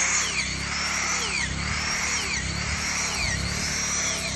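Corded electric drill running continuously while boring holes into a hardwood log, its motor pitch dropping and recovering four times, about once a second, as the bit bites into the wood hole after hole.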